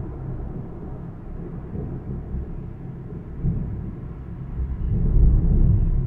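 Rolling thunder after a heavy nearby lightning strike: a deep rumble that eases off, then swells again about five seconds in, heard through a half-open window.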